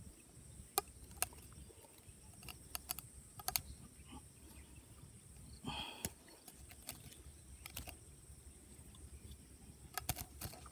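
Faint, irregular clicks and light rustling as a line tied to a tree is handled and pulled in by hand, with a brief scuffle about six seconds in.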